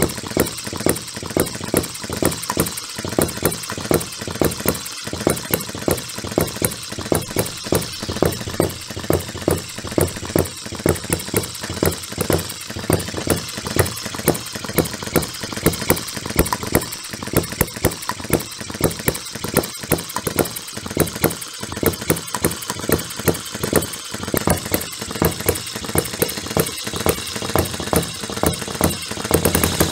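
Miniature single-cylinder model gas engine running on its own, a fast mechanical clatter with louder firing beats at uneven intervals.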